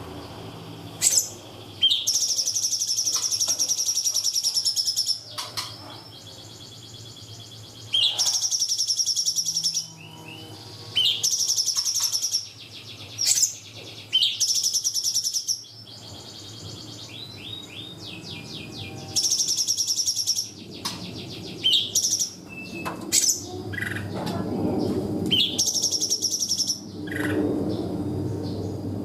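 A cungkok songbird singing its 'tembakan' phrases: short bursts of rapid, high-pitched trilling, each a second or two long, repeated about eight times with natural pauses between them. A lower, softer bird sound runs underneath, louder in the second half.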